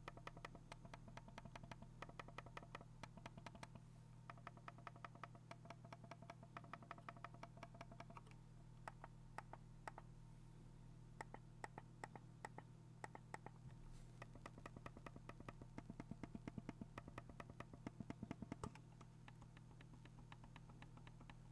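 Logitech Lift vertical ergonomic mouse clicking: its buttons are pressed in quick runs of faint, sharp clicks. The clicking stops about 19 seconds in, and only a few faint ticks follow.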